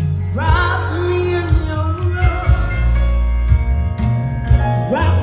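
Live music from a sound check: a singer holding long sung notes over a band with heavy bass and drum beats.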